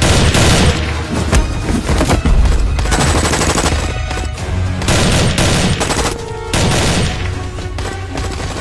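Rapid, sustained automatic gunfire from film sound effects, many shots in quick succession, over background action music with a steady low bass.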